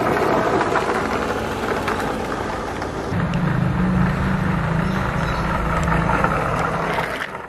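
Electric RC car, a Larlo 1/14 truggy inside a DIY chassis, driving over asphalt: a steady rushing noise of motor and wheels on the road, with a lower hum joining about three seconds in.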